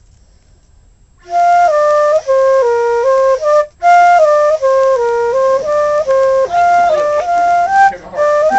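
Background music: a flute playing a simple melody of short held notes stepping up and down, starting about a second in, with a brief break midway.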